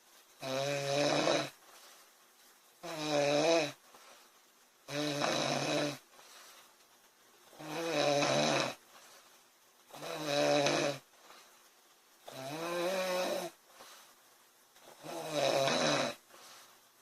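A sleeping woman snoring in a steady rhythm: seven pitched, rattling snores about a second long, one every two to two and a half seconds, with quiet breaths in between.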